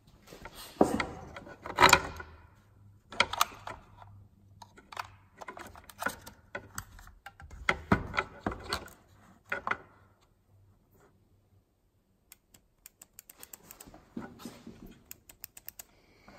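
Clicks, knocks and rattles of an opened Makita 18V cordless circular saw's plastic housing, trigger switch and wiring being handled. The sounds are irregular, and there is a quick run of small, evenly spaced clicks near the end.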